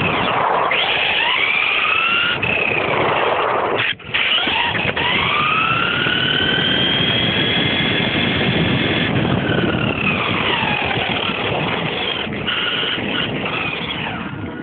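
Tamiya Blazing Star RC buggy's electric motor and gears whining, rising and falling in pitch as the buggy speeds up and slows down, heard up close from the car itself, with a rushing noise underneath. The sound drops out briefly about four seconds in.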